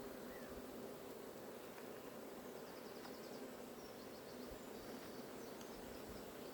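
Honeybees humming steadily around an open hive. Faint high chirps come through about the middle.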